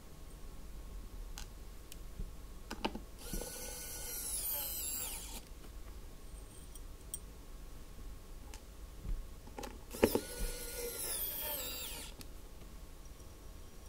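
Pen-style electric precision screwdriver whining in two bursts of about two seconds each as it drives screws into a mechanical keyboard's plate and case. The pitch drops near the end of each burst, and light clicks of the bit against the screw come just before each.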